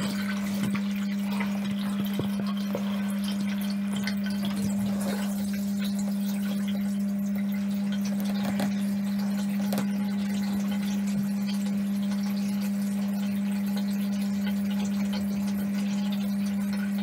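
Aquael Ultramax 1500 canister filter's pump running with a steady electric hum, played at double speed so the hum sits an octave higher, over a faint rush of water being pumped.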